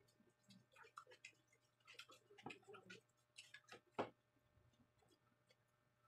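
Faint eating-by-hand sounds: scattered soft clicks and taps of fingers picking at rice and fried fish on a banana leaf and plates, the loudest tap about four seconds in.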